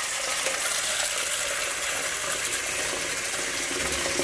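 Tap water pouring in a steady stream into a metal boiling vessel, splashing into the shallow water already in the bottom.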